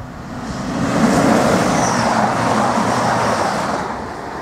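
Express passenger train passing at speed over the level crossing: a rushing rumble that swells over the first second, holds for a couple of seconds, then fades as the train goes by.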